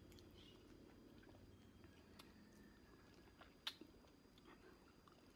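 Faint, wet mouth sounds of someone biting and sucking the flesh from an orange wedge, with small scattered clicks. One sharper click comes a little past halfway.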